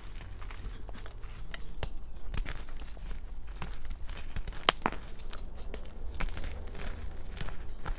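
Reformed gym chalk discs crushed and broken apart by hand in a bowl of loose chalk powder: dry crunching and crumbling made of many small crackles, with one loud sharp crack about halfway through.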